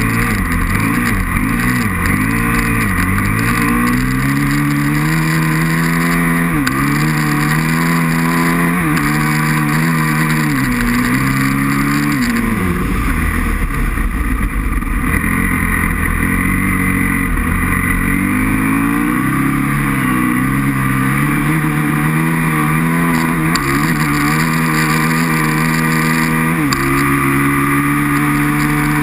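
Aprilia RXV 550's V-twin engine revving hard and dropping back again and again as the bike is ridden on ice. The pitch climbs through each burst of throttle and falls off sharply between them, several times over.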